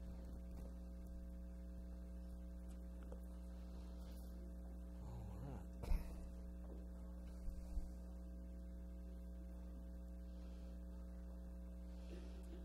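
Steady electrical mains hum, with one sharp knock about six seconds in and a couple of softer bumps a second or two later.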